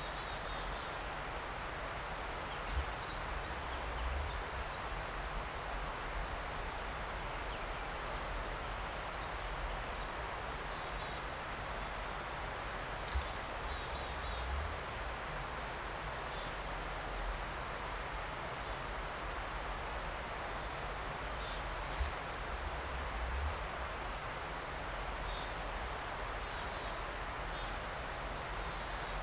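Forest ambience: a steady rushing background noise, with small birds giving short, high chirps again and again. A few soft bumps stand out, about three seconds in, near the middle and about two-thirds through.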